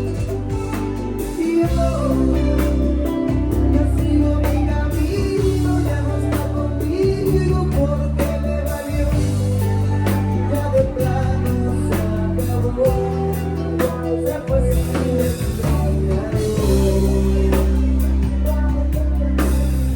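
A song with a singing voice over a heavy sustained bass line and a steady drum beat.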